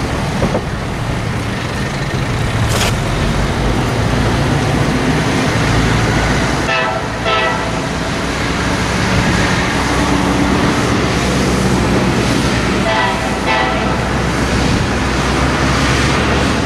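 Heavy diesel trucks passing with a steady low engine rumble, and a horn sounding two pairs of short blasts, about seven and thirteen seconds in.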